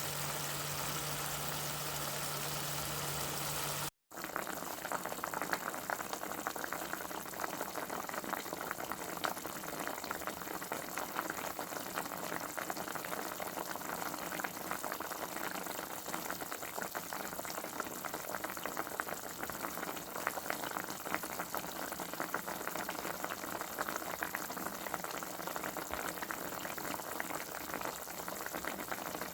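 A steady mechanical hum for about four seconds, cut off by a brief dropout. After it, liquid boiling in a cooking pot: a dense, even crackle of bursting bubbles.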